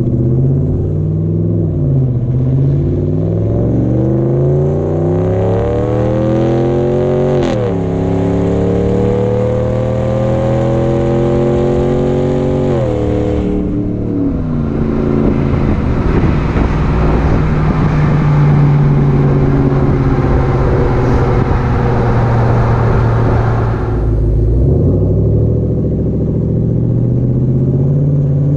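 The 5.7-litre Hemi V8 of a 2020 Ram 1500, heard from the tailgate through a muffler-and-resonator-delete exhaust, accelerating hard. Its note climbs and drops suddenly at upshifts about seven and thirteen seconds in. It then holds steady under loud wind and road rush, which falls away about twenty-four seconds in.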